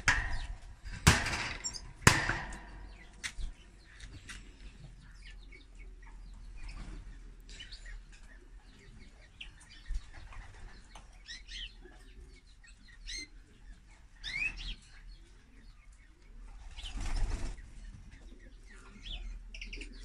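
Caged canary giving short, scattered chirps, with one rising call in the second half. Two loud rustling bursts come about one and two seconds in.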